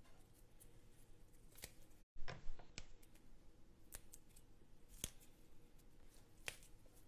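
Plastic slotted spatula clicking and scraping against a nonstick pan as qatayef pancakes are lifted and flipped: a quick cluster of louder clicks about two seconds in, then single sharp clicks a few times after.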